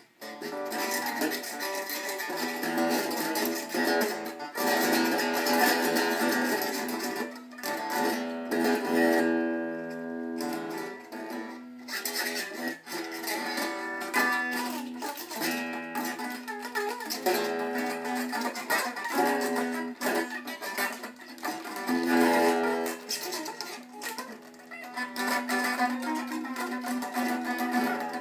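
Stratocaster-style electric guitar strummed and picked continuously by a beginner, free-form notes and chords with only brief pauses.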